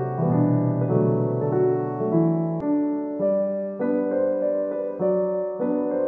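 Background piano music: a slow melody of held notes, changing about every half second to a second.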